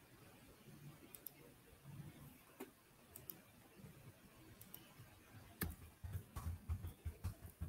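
Faint scattered clicks. About two-thirds of the way in they give way to a quick run of soft low thumps, a few each second, the loudest part.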